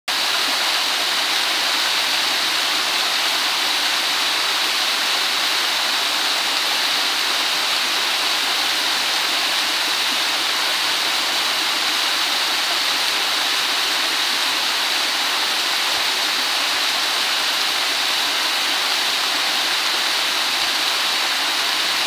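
Steady, even rush of water from a small five-metre waterfall in a mountain stream.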